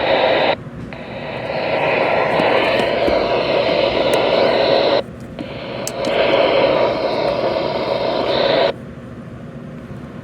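Loud hiss of static from a weather radio's speaker, cutting in and out abruptly three times, as a receiver is tuned or checked on channels without a clear signal. It stops short about nine seconds in.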